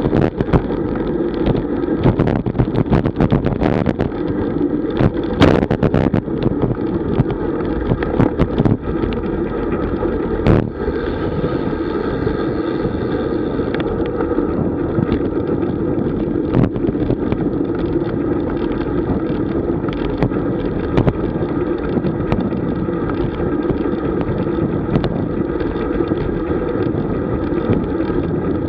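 Wind rushing over the microphone and tyre noise of a road bicycle riding at about 30 km/h. Sharp knocks and rattles come often in the first ten seconds or so, then only now and then.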